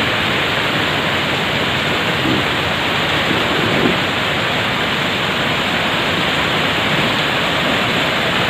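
Heavy storm rain and wind: a loud, steady rushing that does not let up.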